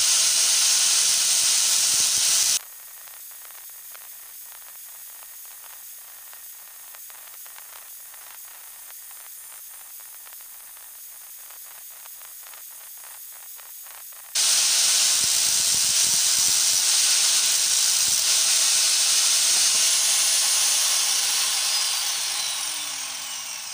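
Angle grinder grinding a steel ring to clean off paint and hammer marks, a loud high-pitched hiss. About two and a half seconds in, the sound drops abruptly to a much quieter level for about twelve seconds, then comes back loud. Near the end it dies away with a falling whine as the grinder spins down.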